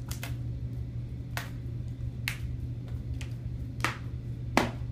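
About six sharp, short clicks or snaps at uneven spacing, two close together at the start and the loudest near the end, over a steady low room hum.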